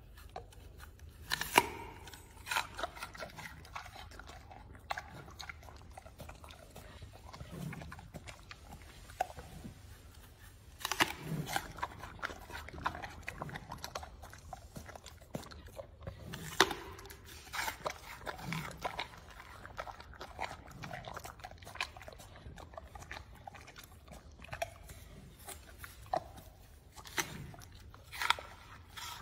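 Giant panda biting into and chewing an apple close to the microphone: sharp, loud crunches every several seconds, with quieter chewing between them.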